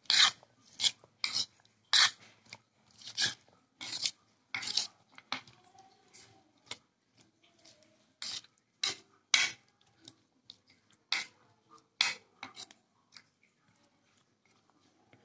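Metal spoon clinking and scraping against a bowl as chopped salad vegetables are tossed, in irregular strokes that thin out near the end.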